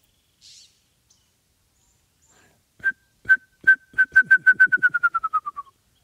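A whistled imitation of a wrentit's song: a few spaced notes that speed up and drop slightly in pitch, like a ping pong ball bouncing to rest. It starts about three seconds in and stops shortly before the end.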